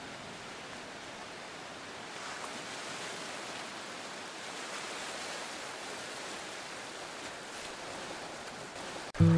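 A steady rushing noise with no pitch, a little louder from about two seconds in, resembling surf or running water. Right at the end an acoustic guitar chord is struck, the loudest sound.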